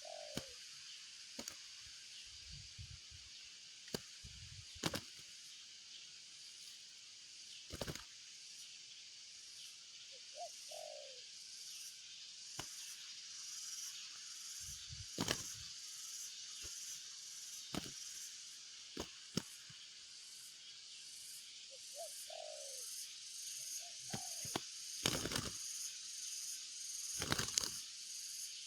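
Spotted dove giving short, low, falling coo notes, sometimes in pairs, every several seconds over a steady, evenly pulsing high insect chorus. Occasional sharp knocks cut in between the calls.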